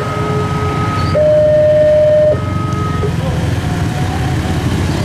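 Railway level-crossing warning alarm sounding its two-tone electronic signal: a lower and a higher tone alternate, each held about a second, and the alarm cuts out about three seconds in. Under it runs the low rumble of motorcycles riding over the crossing.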